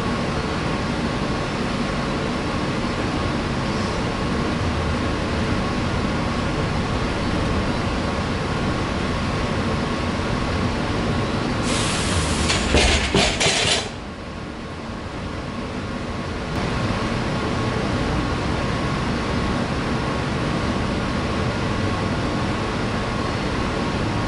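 Steady background hum of the gym room. About halfway through come a couple of seconds of metallic clinking and knocking from a loaded barbell and its plates during a deadlift.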